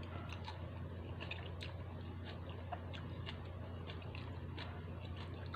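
Close-up eating of instant noodle soup: noodles sucked in, then chewing with many small wet mouth clicks at an irregular pace. A steady low hum runs underneath.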